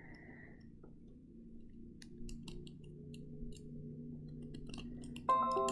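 Faint, irregular small clicks of a metal cuticle cutter nipping and scraping the papery skin off an avocado seed. A soft musical bed comes up underneath, and a sustained musical note sounds near the end.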